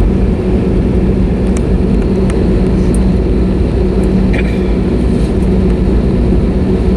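Steady cabin noise inside an Airbus A320neo: a constant low rumble with a steady hum, and a few faint clicks.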